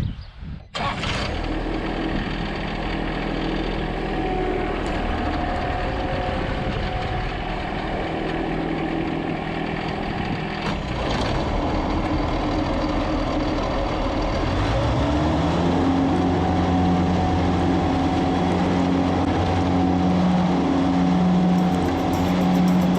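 Lawn mower engine running. About 15 seconds in it throttles up, rising to a steady higher pitch.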